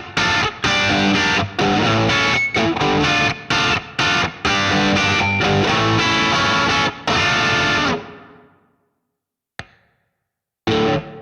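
Electric guitar played through a DemonFx CK Compressor pedal: a riff of short, chopped chords and notes that stops about 8 seconds in and rings out. A click follows, then a single chord is struck near the end and left to ring.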